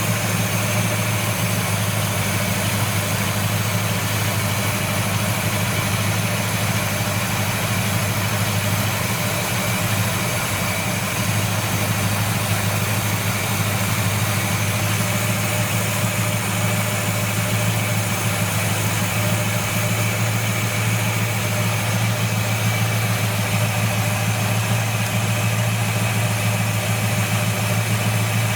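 1970 Buick Wildcat's 455 V8 idling steadily, an even low hum that dips slightly about ten seconds in.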